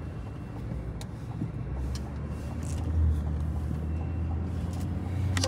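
Low, steady rumble of a motor vehicle, growing louder about two seconds in, with a few faint clicks.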